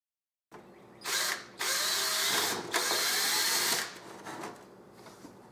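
Power drill with a small bit drilling pilot holes into a Traxxas Slash's plastic RC car body. It runs in a short burst about a second in, then a longer run of about two seconds that stops just before the four-second mark.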